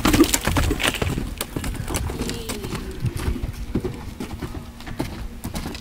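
Horse's hoofbeats thudding irregularly on loose dirt as it runs past close by, loudest about the start.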